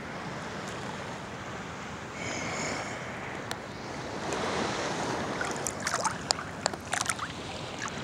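Sea water lapping and sloshing right at the phone's microphone as a swimmer moves in calm ocean water, with wind on the microphone. Sharp splashes and drips on the microphone come in the second half.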